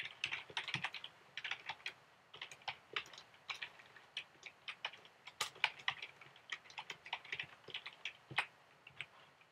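Typing on a computer keyboard: quick, irregular keystrokes in short runs, stopping shortly before the end.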